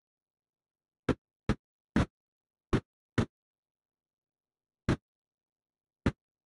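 An FM radio receiver tuned to the ISS downlink on 145.800 MHz, its squelch opening briefly on a weak signal: seven short bursts of static, each cut off by total silence, irregularly spaced.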